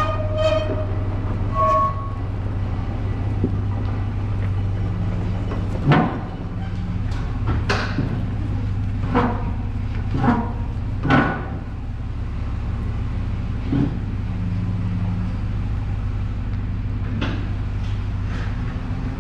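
A vehicle engine running steadily under load, towing a non-running tractor, with occasional sharp clanks and knocks from the tow and the tractor jolting along.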